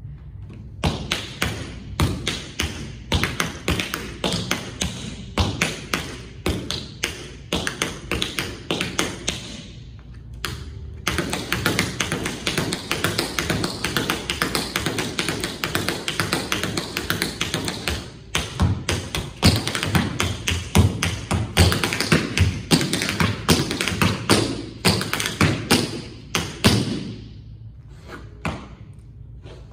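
Tap shoes striking a wooden floor in a fast, rhythmic tap dance, with a brief pause about ten seconds in and the taps thinning out and stopping near the end.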